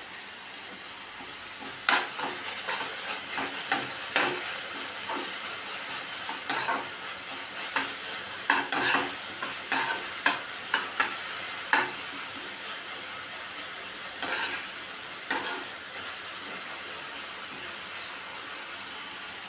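Metal spoon stirring and scraping thick ash gourd halwa in a nonstick kadai, irregular clinks and scrapes against the pan over a steady sizzle as the sugared gourd thickens. The stirring stops about fifteen seconds in, leaving only the sizzle.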